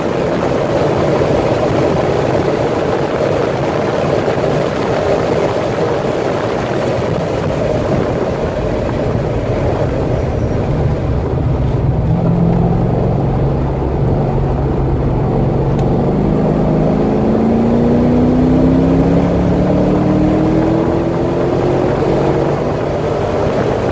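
Chevrolet Corvette C6 V8 at speed on a racetrack, engine and wind noise together. About halfway through, the engine eases off, then pulls hard again with its pitch climbing steadily as it accelerates.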